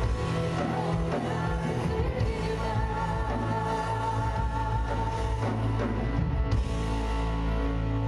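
A choir singing with live band accompaniment: sustained chords over a steady bass line.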